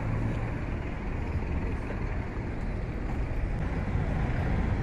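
Steady road traffic noise: a continuous low rumble of cars on a busy city avenue, with no single vehicle standing out.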